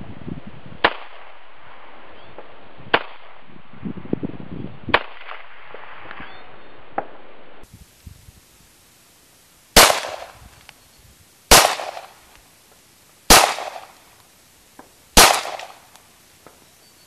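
Gunfire: several faint, sharp AR-15 rifle shots about two seconds apart, then four loud handgun shots less than two seconds apart, each trailing off in a fading echo.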